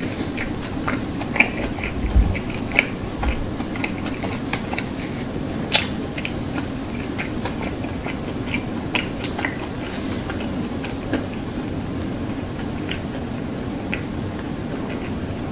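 Close-miked chewing of a Burger King burger: irregular soft wet clicks and smacks of the mouth, with a steady low hum underneath.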